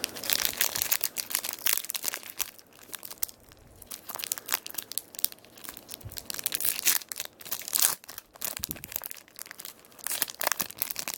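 Crinkling and tearing of a trading-card pack wrapper as it is ripped open, with irregular crackles of the wrapper being handled.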